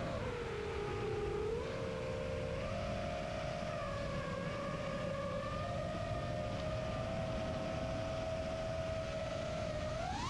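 Brushless motors and Demon 5045 props of a 5-inch FPV quadcopter whining in flight. The pitch dips and steps up twice in the first few seconds, holds steady, then climbs sharply near the end as the throttle is raised.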